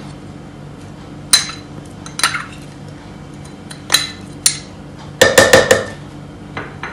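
A metal spoon tapping and scraping against a small bowl and the rim of a plastic blender beaker as crushed garlic is knocked off into it. Single clinks come a second or so apart, then a quick run of several taps about five seconds in.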